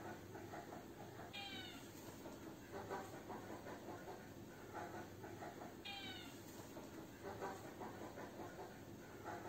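Orange tabby kitten meowing repeatedly: several short calls, with two higher, falling meows about four and a half seconds apart.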